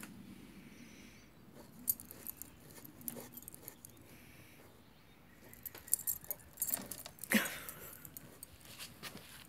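Dachshund digging in loose garden soil, its paws scratching and scattering earth, with the metal tags on its collar jingling; the digging gets busier and louder about six seconds in.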